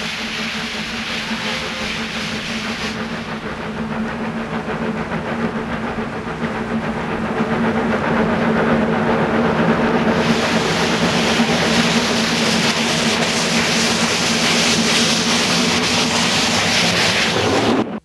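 Triple-headed JNR steam locomotives working a freight train, with a continuous rush of steam and exhaust hiss. It grows louder about eight seconds in and hissier about ten seconds in as the engines draw near, then breaks off abruptly at the very end.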